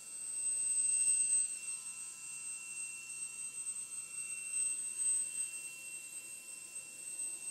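HH-60G Pave Hawk helicopter's turbine whine during start-up: several steady high-pitched tones over a rushing noise, swelling briefly about a second in.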